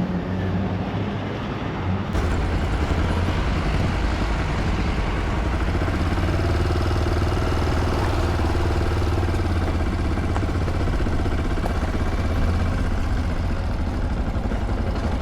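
Motorcycle running steadily on the move, with the engine and the rush of wind and road noise heard together; the sound shifts slightly about two seconds in.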